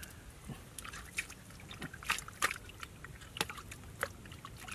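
Wet mud squelching and sloshing in irregular splats as an arm digs and gropes down inside a muddy hole, with a few louder splats midway.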